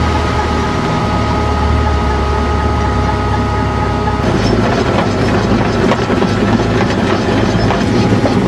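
Potato truck running, heard as a steady low engine hum with a few steady tones. About four seconds in, these give way to a rougher rumble with rattling and clicking.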